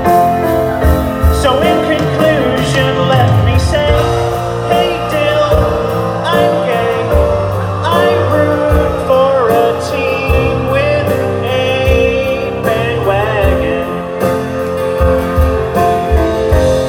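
Live band with electric guitar playing a song while several men sing the lyrics into microphones over a PA.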